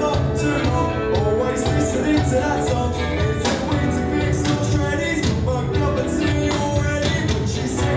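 Live rock band playing: a teenage boy's lead vocal over electric guitars and a drum kit keeping a steady beat.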